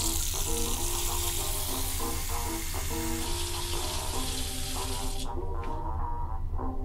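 Tap water running from a mixer tap into a bathroom basin over cupped hands, a steady hiss that cuts off abruptly about five seconds in. Background music with a steady bass line plays throughout.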